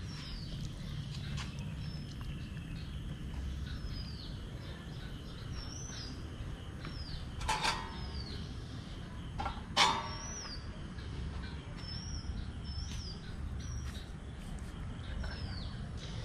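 A small bird calls over and over with short, high, downward-sliding chirps over a steady low outdoor rumble. Midway, twice about two seconds apart, comes a sharp clink of metal skewers with a short ring.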